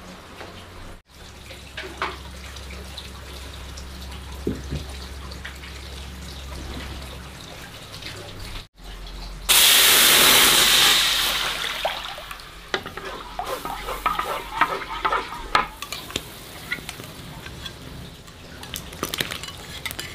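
Kitchen work: a loud rush of running water starts suddenly about halfway and fades over a couple of seconds, followed by scattered clinks and knocks of utensils or dishes.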